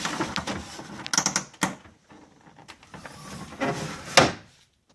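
Plastic decklid trim being worked loose by hand: rubbing and scraping with several sharp clicks, the loudest about four seconds in.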